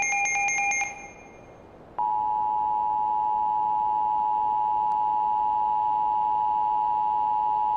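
Emergency Alert System attention signal: a steady two-tone alert tone (853 and 960 Hz) held unbroken from about two seconds in. Before it, a rapidly pulsing electronic alarm tone cuts off just under a second in, followed by a brief pause.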